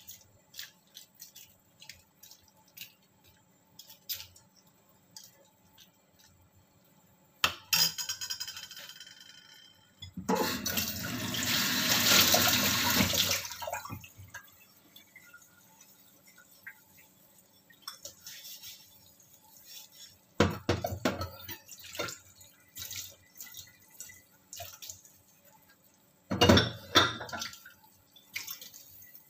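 Kitchen tap running for about four seconds, a third of the way in, among scattered light clinks and knocks of dishes being washed at a sink.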